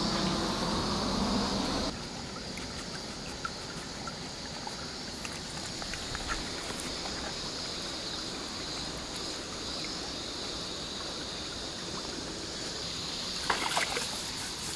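Shallow water trickling in a narrow irrigation ditch while a San'in Shiba dog stands and moves about in it, with small scattered clicks and splashes. A short cluster of sharper sounds comes near the end.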